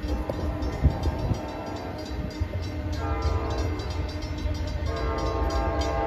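Departing commuter train rumbling away, its horn sounding several blasts of a multi-note chord, clearest about three seconds in and again near the end.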